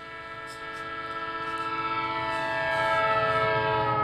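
Train horn sounding one long, multi-note chord that swells louder and sags slightly in pitch near the end, with a low rumble of the passing train building underneath.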